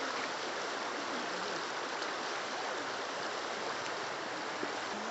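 Shallow river running over stones: a steady rush of water with no let-up.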